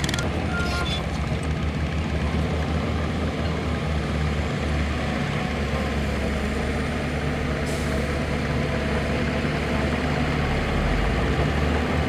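Heavy diesel construction machinery running steadily, with a reversing beeper sounding in the first second and a short hiss about eight seconds in.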